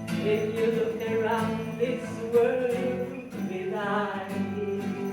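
A live song: voices singing sustained, wordless-sounding notes over instrumental accompaniment, likely guitar.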